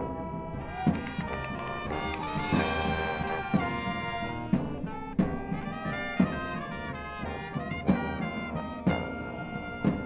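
Marching band playing: the brass section holds loud sustained chords, punctuated by sharp percussion hits every second or so.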